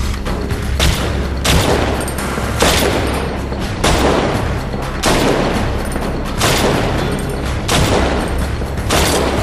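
Semi-automatic pistol fired shot after shot, about one a second, with soundtrack music carrying a low steady drone underneath.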